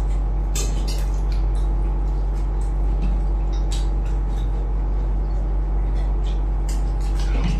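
Wet chewing and lip-smacking clicks, scattered and irregular, over a steady low hum.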